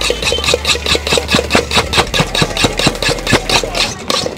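Steel spoon rapidly mixing bhel puri in a stainless steel bowl, clinking and scraping against the metal in a fast, even rhythm of about five strokes a second.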